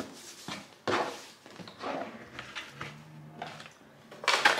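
Unboxing handling sounds: a ribbon is pulled off a cardboard shoe box, the lid is opened and tissue paper rustles, in a few short bursts with a louder rustle near the end.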